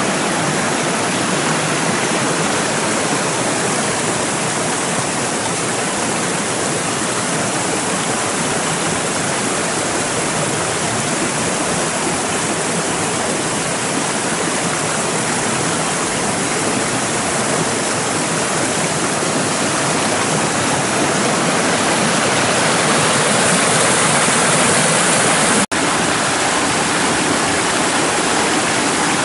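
Muddy rainwater running in a normally dry rambla, rushing steadily over stones and small drops. It grows a little louder toward the end and breaks off for an instant near the end.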